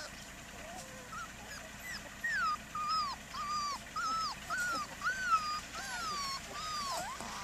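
Border collie puppy whining: a run of about ten high-pitched whines, each rising then falling, roughly two a second, starting about two seconds in.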